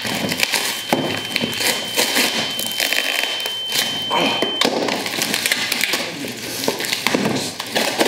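Packing tape and cardboard being torn off a shipping box, with rapid crackling and crinkling. A steady high tone sounds over it and cuts off suddenly about four and a half seconds in.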